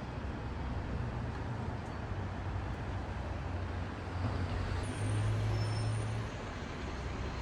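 Motor vehicle running with road noise and a steady low rumble that grows louder about five seconds in.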